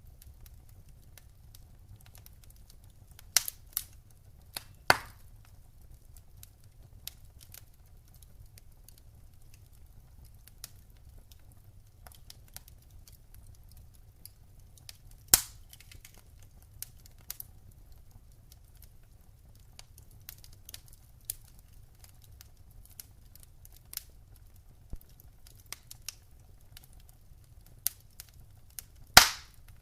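Wood fire burning in a fireplace, crackling with scattered small ticks and a few loud pops, the loudest near the end, over a faint low rumble.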